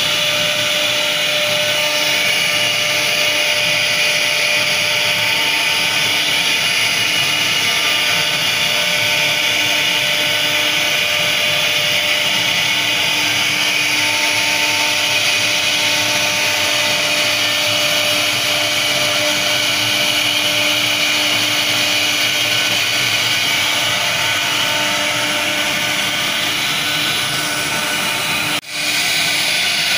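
CNC router spindle running with its bit carving a relief into a wooden door panel: a steady whine over the hiss of cutting wood. The sound drops out for an instant near the end.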